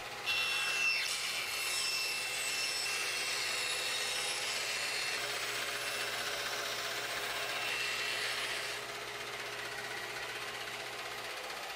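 Bandsaw running and cutting through a board, a steady sawing hiss over the motor's hum. The cutting noise eases off near the end while the hum carries on a moment longer before stopping.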